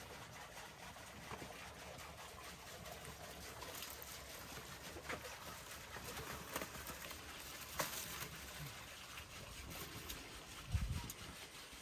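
Faint crinkling of aluminium foil and light clicks as a large foil-wrapped, wire-bound beef leg is handled and hung up, over a steady outdoor hiss. A dull thump near the end is the loudest sound.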